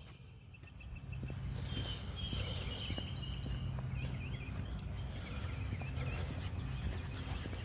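Outdoor trail ambience: a steady low rumble starts about a second in, with faint bird chirps in the middle and soft footsteps.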